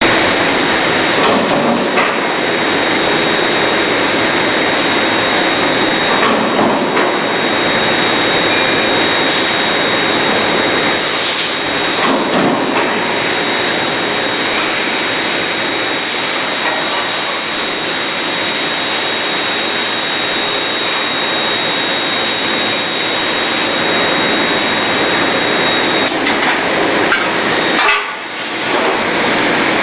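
High-frequency induction furnace running: a loud, even roar with a steady high-pitched whine over it. The whine stops about four seconds before the end.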